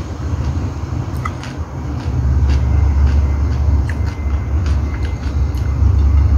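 A steady low rumble throughout, with scattered small clicks and smacks of someone eating rice and adobo by hand, fingers on the plate and chewing.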